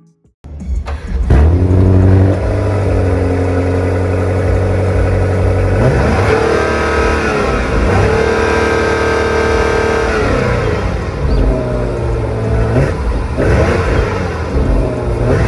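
2023 BMW 760i xDrive's twin-turbo V8 engine starting up with a flare about a second in, then idling and being revved several times, each rev rising and falling back to idle.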